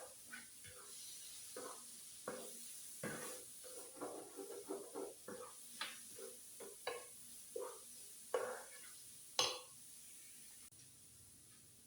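Metal utensil scraping and knocking on a flat-top griddle as pasta is stirred and turned, over a faint frying sizzle. The strokes come irregularly, the loudest near the end, and stop about ten seconds in.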